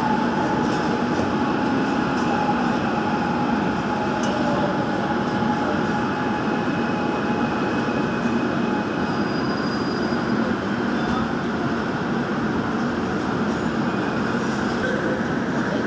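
Steady running noise of a Gwangju Metro Line 1 subway train, heard from inside the car.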